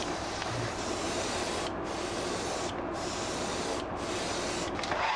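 Airbrush spraying paint, a steady hiss of air whose high part drops out briefly three times. At the very end a hair dryer starts and its hum rises to a steady pitch.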